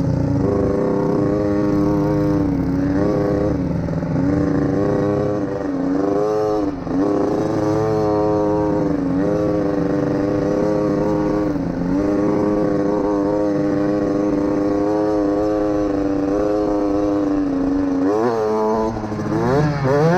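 Dirt bike engine running close to the microphone at a mostly steady pitch while being ridden. The pitch dips and recovers several times as the throttle is eased and reopened, then revs climb sharply near the end.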